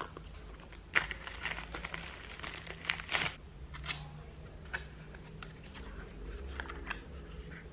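Hands handling small cardboard boxes and packaging: rustling, light taps and scrapes, with a sharp click about a second in and a busy patch of crinkly handling up to about three seconds in, as a box's flap is worked open. A faint low hum runs underneath.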